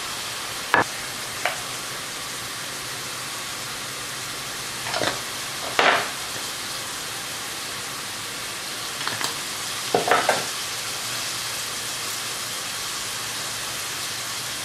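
Cubed chicken fillet frying in oil in a stainless steel pan, a steady sizzle, with a few short knocks and rustles as spices are sprinkled over it, about a second in, around the middle and again a little later.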